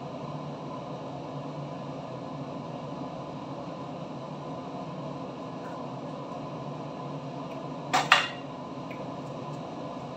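A steady background hum, with two sharp clinks of a utensil against the frying pan about eight seconds in.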